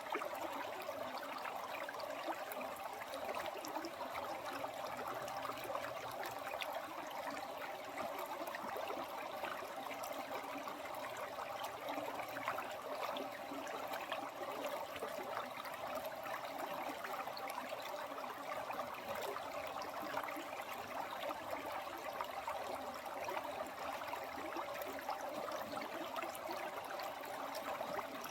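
Flowing stream water, a steady, unbroken babble.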